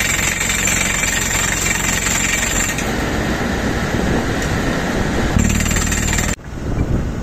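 JK 590 crawler drill rig drilling rock with a 5-inch pneumatic down-the-hole hammer and 152 mm bit: rapid air-driven hammering over the rig's running engine. The sound shifts partway through and breaks off abruptly near the end.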